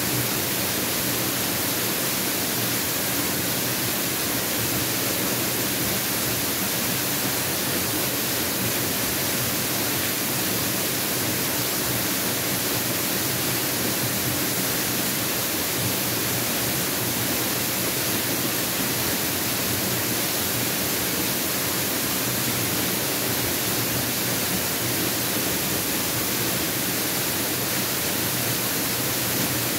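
Mountain waterfall pouring: a steady, even noise of falling water that does not change.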